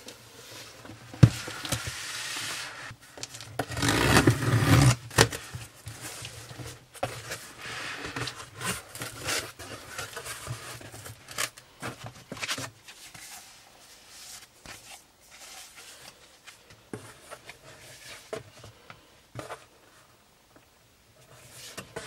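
A cardboard shipping box being handled and unpacked by hand: cardboard flaps scraping and paper wrapping rustling, broken by small knocks and clicks. The loudest stretch comes about four seconds in, and it grows quieter after the middle.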